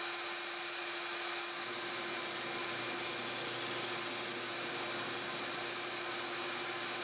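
Drill press running a 2-inch Forstner bit, with a dust-collection hose held by the bit adding a steady airy rush over the motor's whir. A low hum joins about a second and a half in.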